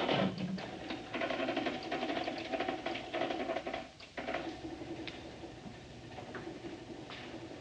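Fast mechanical clatter of a running machine, with a steady hum under it, broken off sharply twice.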